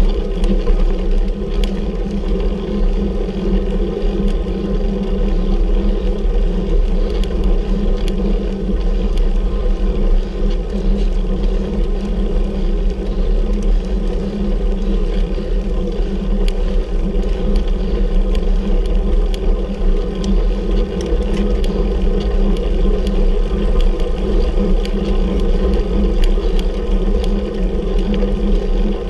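Steady rumble and hum of a road bicycle being ridden up a climb, with faint scattered ticks.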